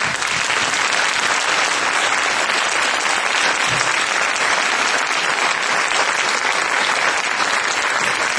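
Audience applauding: dense, steady clapping that starts suddenly and holds at an even level.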